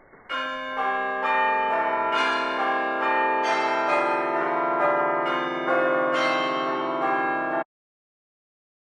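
Bells chiming a run of notes about two a second, each ringing on under the next; the sound cuts off abruptly near the end.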